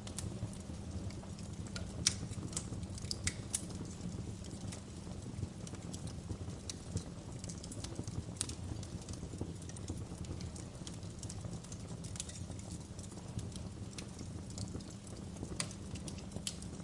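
Wood fire crackling in a fireplace: irregular sharp pops and snaps over a steady low rumble of burning, with the loudest pop about two seconds in.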